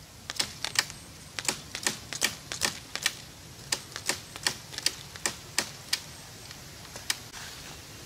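Pruning shears snipping at a small tree branch: a quick, irregular run of sharp clicks, about two or three a second, that stops about seven seconds in.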